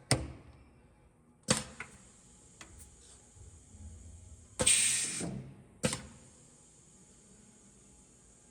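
Sharp metal clunks and clicks from the Scotchman upcut saw's swivelling table and mitre locks being handled, three in all. A short hissing whoosh comes about halfway through.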